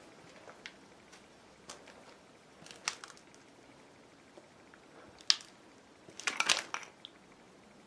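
Footsteps crunching underfoot: a few scattered steps, then a louder quick cluster of crunches near the end.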